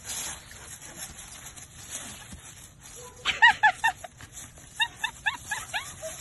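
German Shepherd giving excited high-pitched yips while playing tug over a stick: a quick run of four or five short calls about three seconds in, then a second run of short rising calls about a second later.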